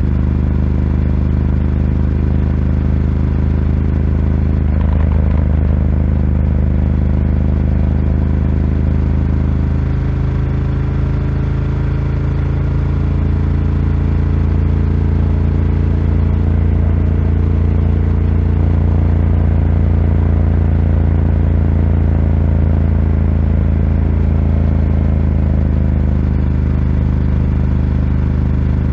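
Ducati Scrambler 1100's air-cooled L-twin engine, fitted with a Termignoni exhaust, running steadily while the bike cruises, with its low note growing fuller from about ten seconds in.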